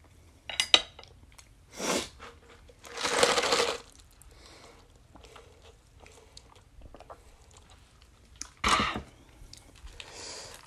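Close-miked eating sounds: a few sharp clicks, then a loud noisy slurp of spicy noodles lasting under a second, about three seconds in. Quieter sipping and chewing follow, with another short loud burst near the end.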